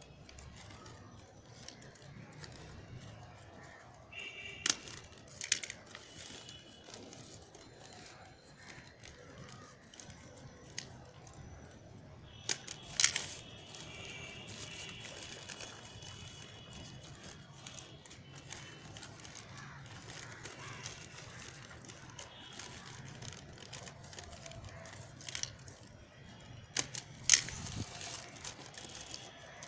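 Newspaper being folded and creased by hand, rustling and crinkling, with a few sharp clicks. The loudest clicks come about thirteen and twenty-seven seconds in.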